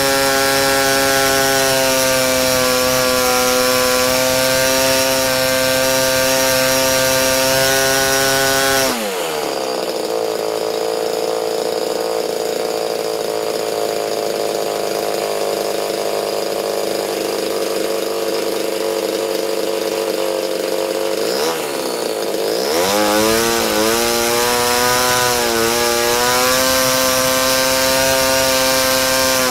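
RCGF 15cc Stinger two-stroke petrol engine driving a propeller at full throttle while its top end is tuned. About nine seconds in it drops sharply to a steady idle. Around twenty-two seconds in it is opened up again, wavering as it climbs back to high revs, and it drops off once more near the end.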